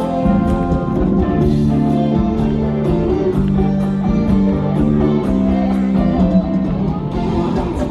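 Live rock band playing an instrumental passage: guitars over a drum kit.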